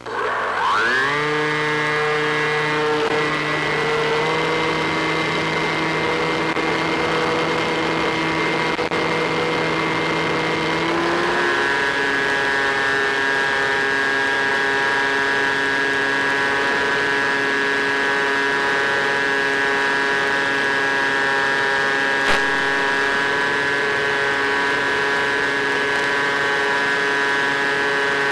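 Electric motor of an Easy Star RC plane whining under power, picked up by the onboard camera. The pitch rises quickly as it spools up for launch, then holds steady, shifting slightly a few seconds in and again about eleven seconds in, over a rushing of wind. A single sharp click comes about twenty-two seconds in.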